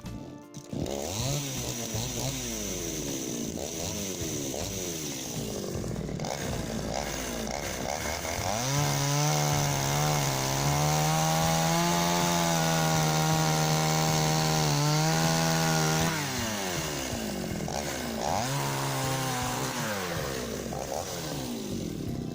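Chinese two-stroke petrol chainsaw with a freshly sharpened chain, revved up and down several times, then held at high revs for about seven seconds before dropping back and revving once more.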